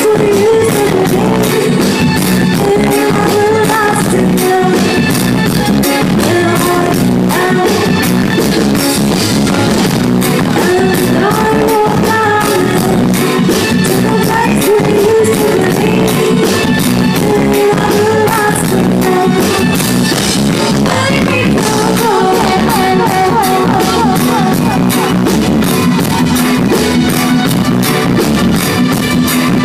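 A live reggae band plays loudly, with a woman singing lead over electric guitar and a steady drum kit beat.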